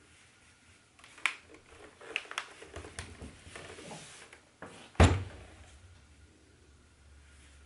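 Clothes iron and fabric being handled on an ironing board: a few light knocks and clicks, then a single loud thump about five seconds in as the iron is set down.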